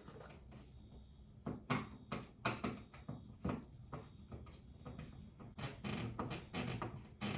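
Irregular clicks and knocks of hands working at a blue plastic electrical box set in drywall, with several sharper knocks about two to three seconds in and again near the end.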